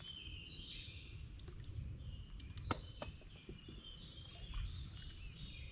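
Birds singing and chirping over a low rumble. A sharp click comes a little under three seconds in, with a fainter one just after.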